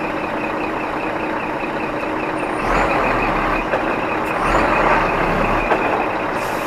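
Heavy truck engine running, with a rapid high-pitched repeating beep over it and two short low surges in the rumble in the middle.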